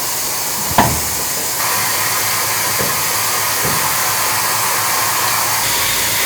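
Steady hiss of steam in a steam ship's engine room as the engine is put ahead, with one sharp clank about a second in; the hiss grows louder about a second and a half in.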